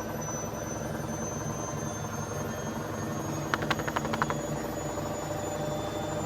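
Washing machine on its spin cycle, running with a steady hum, with a quick run of about seven sharp knocks a little past halfway through. The knocking comes from the machine vibrating on spin.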